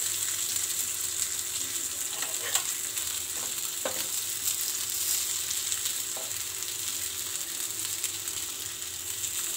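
Masala-coated potato slices sizzling in hot oil on a tawa, with a few light clicks of a metal spatula turning them.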